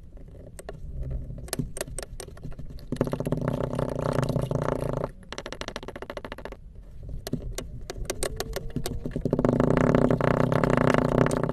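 A wooden muddler crushing dry, crumbly orange blocks in a glass: scattered crackling crunches, then a dense grinding crunch as the blocks collapse into powder. This happens twice, with a brief pause between.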